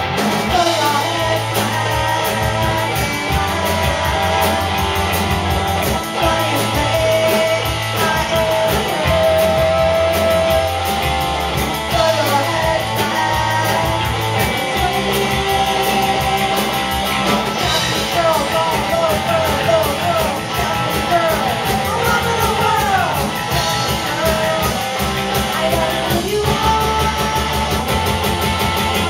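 Live rock band playing: electric guitars, electric bass and drum kit, with singing.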